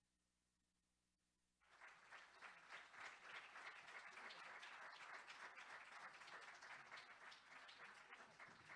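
Audience clapping, starting suddenly about two seconds in and going on as steady applause.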